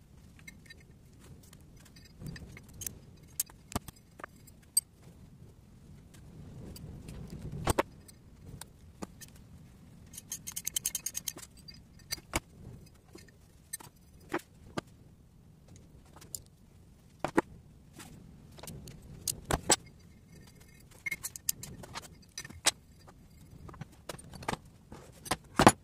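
Metal clinks and taps of a small open-end wrench and loose steel nuts against an aluminium cylinder head from a Tofaş engine, as nuts on the head are fitted and tightened by hand. About eleven seconds in there is a quick run of rapid clicks.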